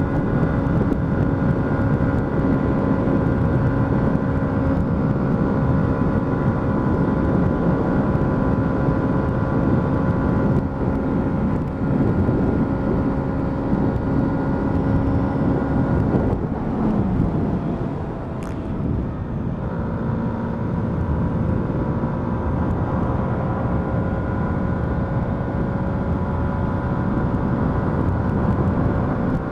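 Yamaha MT-125's single-cylinder four-stroke engine running steadily at cruising speed over a dense rush of wind and road noise. A little over halfway through, the engine note drops and quietens for a couple of seconds, then settles back into its steady tone.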